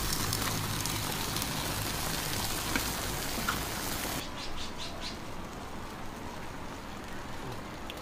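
Large pan of stew boiling hard over a fire, a dense bubbling, sizzling hiss that drops away sharply about four seconds in, leaving a softer simmer.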